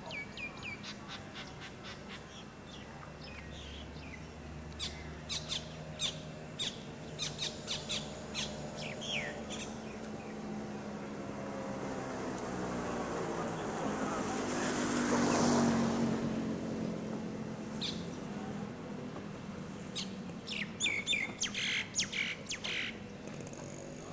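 Small birds chirping in quick, repeated short calls, in two spells. A little past the middle, a vehicle's engine swells to a peak and fades as it drives by.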